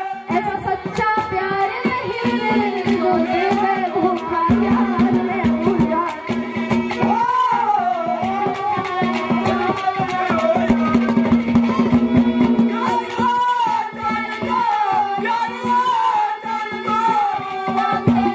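Live Haryanvi ragni music: a woman's singing carried over a harmonium and quick hand percussion on drums and clay pots, with a steady held drone note underneath.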